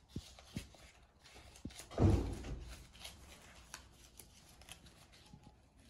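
Paper dollar bills rustling and crinkling as they are counted and laid down by hand, in scattered short crackles, with one louder thump about two seconds in.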